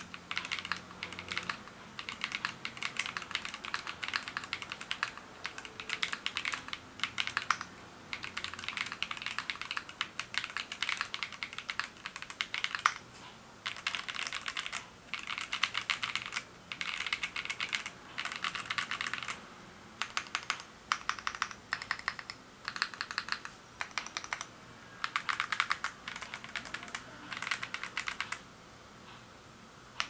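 XOX70 tenkeyless mechanical keyboard with an aluminium plate and Guaiguai switches being typed on: rapid runs of key clacks in bursts of a second or two with short breaks between them. The typing stops about two seconds before the end.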